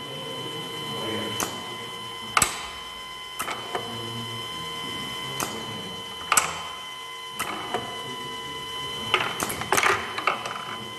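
Automatic pneumatic sorting line running: the conveyor drive gives a steady hum while pneumatic cylinders and pushers fire with sharp, irregular clacks and puffs of air as plastic workpieces are sorted off the belt. The loudest clacks come about two seconds in, past six seconds, and in a quick cluster near the end.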